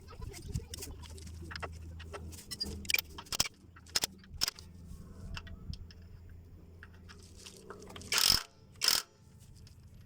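Metal hand tools clicking and knocking while transmission filter bolts are tightened, with two louder knocks near the end.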